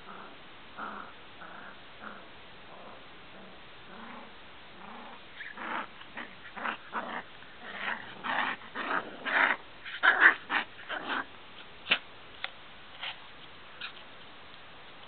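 Two small dogs play-fighting, growling and yapping in short bursts that grow into a rapid, loud flurry about ten seconds in, then fade to a few single sharp yaps.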